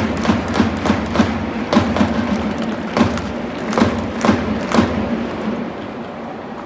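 Stadium crowd ambience inside a domed ballpark with sharp rhythmic thumps, about three a second, that thin out near the end.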